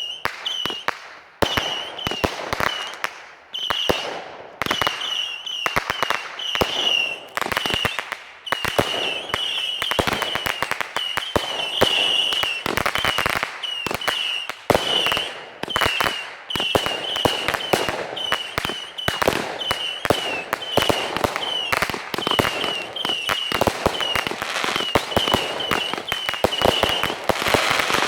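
Fireworks display going off in rapid succession: dense, overlapping bangs of shells bursting with crackling between them. Short high chirps recur about once or twice a second.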